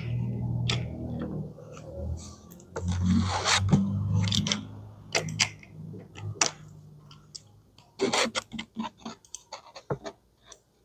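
Handling noise: a knitted glove rubbing and scraping over plastic dolls and the cloth beneath them. A low rumble runs under the first half, and many small plastic clicks and taps follow in the later part as the dolls are moved.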